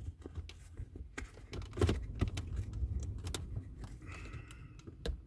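Irregular small clicks, taps and rustles of the leather gear-lever gaiter and selector trim being handled and pushed back into place around a new automatic gear knob.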